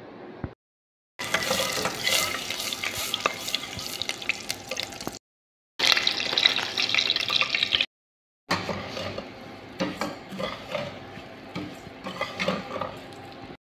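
Butter sizzling in a steel pot while a metal slotted spoon stirs it, then thin vermicelli being stirred and toasted in the pot with frequent scraping clicks. The sound comes in short clips separated by sudden silent gaps.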